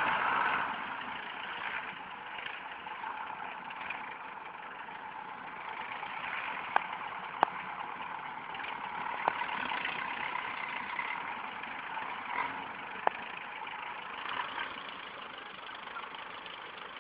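Belarus farm tractor's diesel engine running steadily while pulling a heavy trolley load through a cane field, louder for the first half second. A few sharp clicks stand out over the engine.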